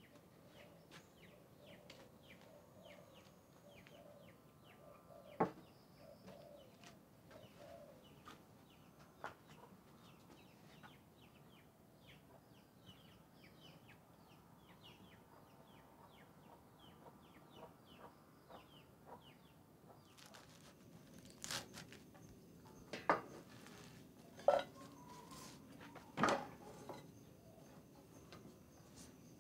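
Quiet ambience with chickens clucking and a faint patter of rapid high chirps. A few sharp knocks sound, mostly in the second half.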